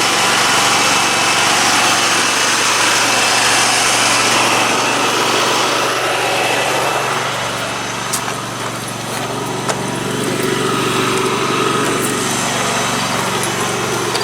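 Engine of a Dixon 72-inch riding mower running steadily after a quick repair to its deck pulleys.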